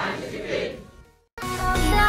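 A large crowd of students chanting together in unison, fading out about a second in. After a brief silent gap, electronic music with a steady beat begins.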